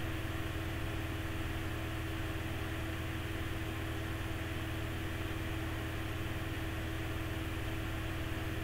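Steady background hum and hiss with no speech: a continuous low hum with a steady higher tone over it, unchanging throughout.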